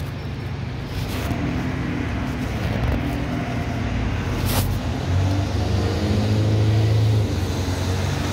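A red double-decker bus pulls away and drives past, its engine running as a low hum. The hum grows loudest about five seconds in, then eases near the end.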